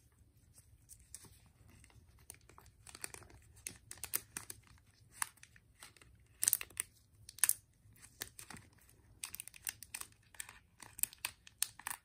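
Thin clear plastic sleeve crinkling and crackling as it is handled and wrapped around a Zippo lighter. It makes irregular small crackles, with two louder crinkles about six and a half and seven and a half seconds in.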